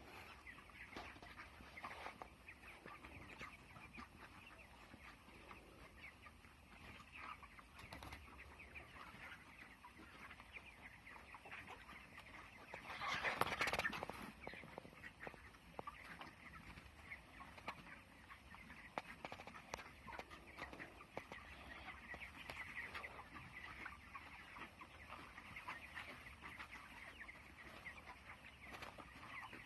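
A flock of 23-day-old broiler chickens chirping and clucking together in a steady, faint chatter, with one louder burst of noise about halfway through.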